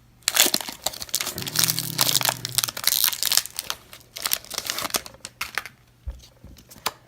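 Foil wrapper of a Pokémon trading card booster pack being torn open and crinkled: a dense run of crackling crinkles that thins out about six seconds in.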